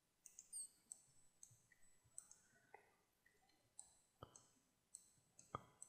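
Faint clicking of a computer mouse and keyboard: a dozen or so short, light ticks, with two sharper, louder clicks about four and five and a half seconds in.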